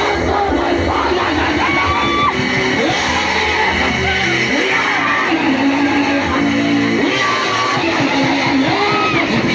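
Loud live music: voices singing over guitar, with the echo of a large hall.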